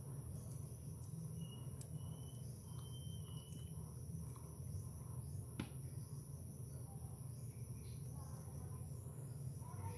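Faint handling of a three-strand twisted rope being worked by hand, over a steady low hum and a continuous high-pitched whine, with one sharp click a little past halfway.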